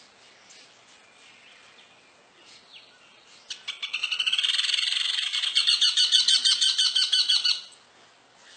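Woodpecker giving a loud, rapid chattering call of many quick repeated notes. It starts about three and a half seconds in and stops abruptly about four seconds later.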